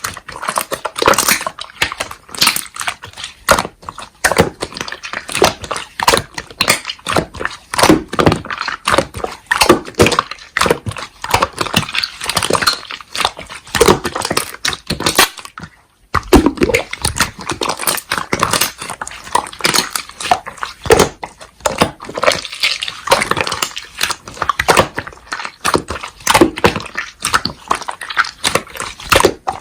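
Slime being squeezed and pressed by hand, a dense, continuous run of sticky clicks and crackling pops, with a brief break about halfway through.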